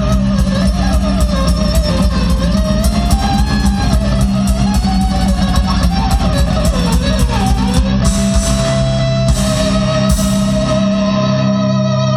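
Live heavy instrumental rock on amplified, distorted cellos over a drum beat. A lead cello melody winds up and down, then holds one long high note from about two-thirds of the way in as the drum hits thin out.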